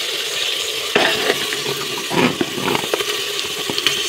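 Sliced onions frying in hot oil in a pressure cooker, a steady sizzle, with a spatula stirring them and knocking against the pot several times, sharpest about a second in. The onions are about half browned.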